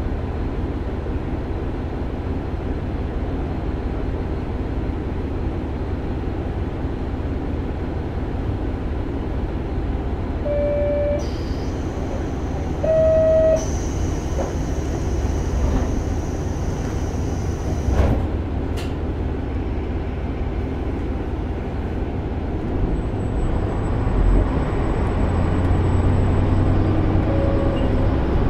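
Steady running rumble of the KiHa 147 diesel railcar heard inside its passenger cabin, engine and wheels on the rails. Two short horn toots come about ten and thirteen seconds in, the second louder. A single knock comes a few seconds later, and the engine note rises near the end.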